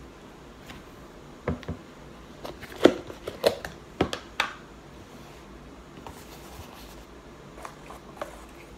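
A cluster of sharp crunches and knocks from about one and a half to four and a half seconds in, loudest near three seconds, as oven-baked cornstarch is eaten and its plastic tub is handled. A few faint clicks follow near the end as a spoon scoops from the paper box.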